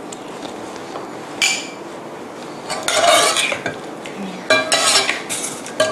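A utensil scraping and clinking in a pot as cooked pork is tossed with its seasonings, in repeated bursts from about halfway through, after a single short clatter.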